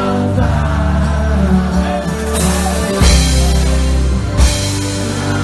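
Live forró band playing loud amplified music with a heavy bass line, with brief bright crashes about two seconds in and again near four and a half seconds.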